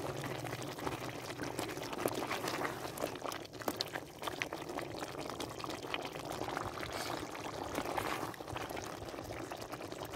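Karahi gosht in a clay handi on the heat, the thick gravy bubbling and sizzling steadily, with many small crackles as a spatula stirs through the meat.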